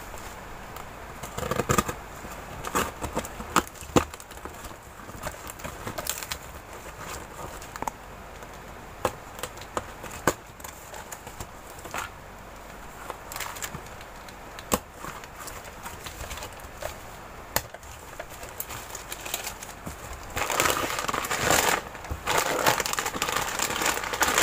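Packing tape being cut and torn open on a cardboard parcel, with scattered sharp cracks and rustles of tape and cardboard flaps. From about twenty seconds in, plastic snack packaging crinkles steadily as it is handled.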